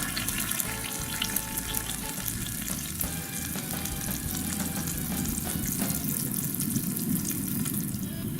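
Food sizzling in oil in a pan: a steady hiss with fine crackles.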